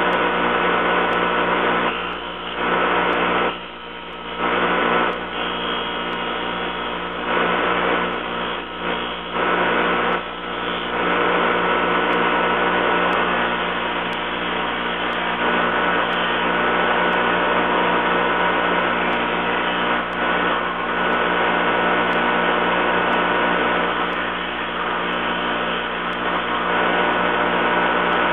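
A motor-driven machine running steadily with a constant hum, dipping briefly in loudness several times in the first ten seconds or so.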